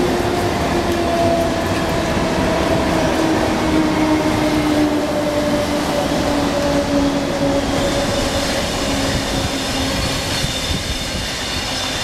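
Deccan Queen express, hauled by a WCAM-3 electric locomotive, coming in along the platform: a steady rail rumble with a whine that slowly drops in pitch as the train slows. Faint high squealing tones join in the last few seconds.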